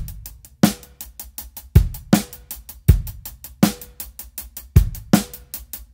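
DW drum kit playing a backbeat groove: kick drum, snare cracks on beats two and four with a short ring, and the hi-hat in steady semi-quavers (sixteenth notes), about five strokes a second.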